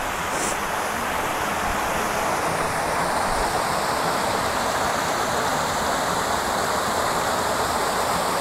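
Low cascade of a small mountain waterfall pouring over a rock ledge into a shallow pool: a steady rush of falling water.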